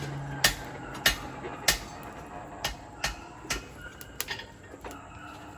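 Hand hammer striking a bar of hot 5160 steel on an anvil while forging a knife blade. About nine ringing blows land half a second to a second apart, the first three heaviest and the later ones lighter.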